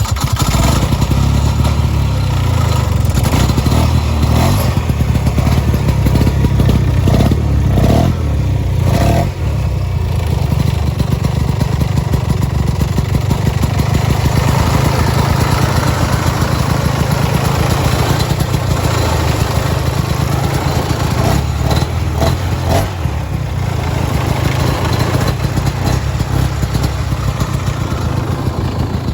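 1970 Ski-Doo Olympic 12/3 snowmobile's 299 cc single-cylinder two-stroke Rotax engine running after being started, with a steady low engine note.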